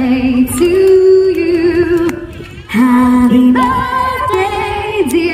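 A song with a woman singing long held notes with vibrato, pausing briefly about two seconds in before the next phrase.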